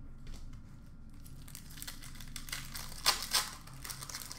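Wrapper of an Upper Deck hockey card pack crinkling and tearing as it is opened by hand. The crackles build through the second half, loudest about three seconds in.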